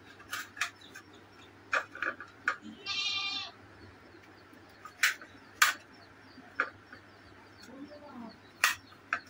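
A knife clicking sharply against a plate in scattered strokes as guavas are sliced on it. About three seconds in, a goat bleats once, briefly.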